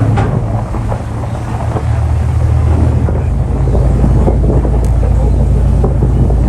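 Boat engine giving a loud, steady low drone that shifts slightly in pitch about two to three seconds in, with wind noise on the microphone.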